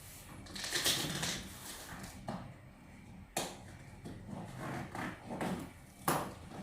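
Cardboard box and packaging being handled during an unboxing: a rustling, scraping stretch about a second in, then scattered scrapes and two sharp knocks, the loudest near the end.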